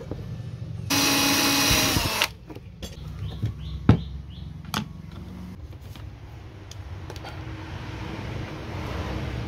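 A cordless power drill runs in one steady burst of about a second and a half, starting about a second in. A few sharp knocks and clicks from handling the parts follow.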